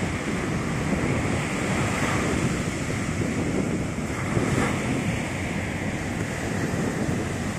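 Sea surf breaking and washing up a sandy beach, a steady continuous wash, with wind rumbling on the microphone.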